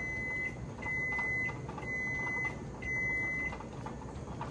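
Kitchen timer beeping four times, about once a second, each beep a steady high tone held for well over half a second. It signals the end of the jelly's one-minute full rolling boil.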